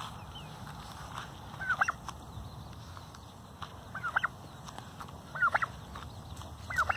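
White domestic turkey calling four times, each call a quick run of a few short notes, spaced roughly a second and a half to two seconds apart.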